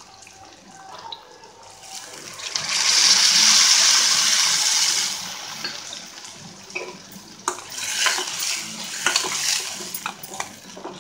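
Water poured into a hot steel pot of frying ice apple curry: a loud hiss starts about two seconds in and lasts some three seconds. After that, a spoon stirs the curry, with scattered clinks against the pot.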